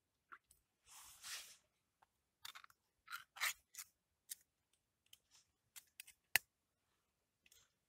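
An opened tuna tin handled by hand: a brief rustle about a second in, then a string of light clicks and scrapes of the metal tin, the sharpest click near the end.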